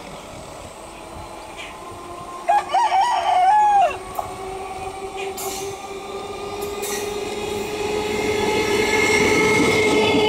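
A rooster crows once, about two and a half seconds in. Then an EMU electric local train approaches on the near track and passes close by, growing steadily louder with a steady whine.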